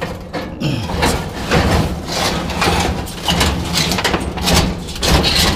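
Scrap metal scraping and clanking in repeated knocks as a piece is shoved and wedged into a packed load of scrap.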